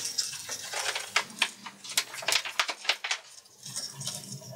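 Light, irregular clicks and taps of a small epoxy brush against a plastic mixing cup and a crankbait held in a clamp, as two-part epoxy is picked up and brushed onto the lure. The taps come about a dozen times, unevenly spaced, with a short lull a little after the middle.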